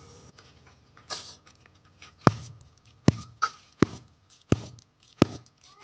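A series of five sharp knocks or slaps at a steady pace, about one every three-quarters of a second, with softer rustling and scraping between them.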